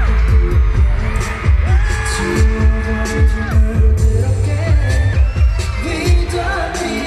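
Live K-pop concert music from the arena's sound system, recorded from the audience: a heavy, pounding bass beat under sung vocal lines.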